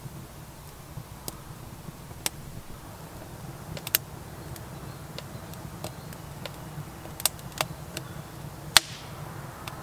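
Split-wood campfire crackling, with irregular sharp pops scattered through it; the loudest pop comes near the end.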